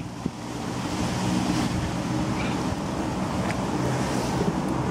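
Hot water poured from a stainless stovetop kettle into a steel mug, over a steady low rumble, with a light knock just after the start.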